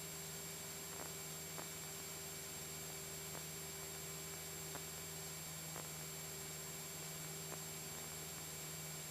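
Steady, unchanging drone of a Cessna 172SP's engine and cabin in level cruise flight, heard as a low hum under a constant hiss, with a few faint scattered clicks.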